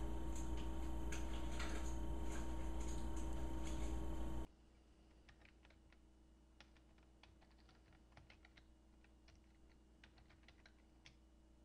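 A steady hum with a few faint ticks, which cuts off suddenly about four and a half seconds in. After that, quiet, faint clicks of a computer keyboard being typed on, one key at a time.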